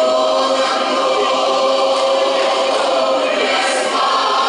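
Large mixed choir of men and women singing a hymn, holding sustained chords in several voice parts.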